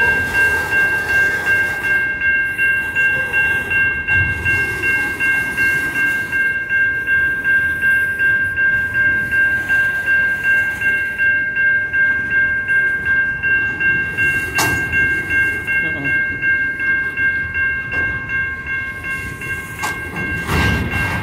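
Type 3 Safetran electronic crossing bell ringing steadily in a rapid pulsing tone while coal hopper cars roll past on the track. A single sharp clank comes about two-thirds of the way through.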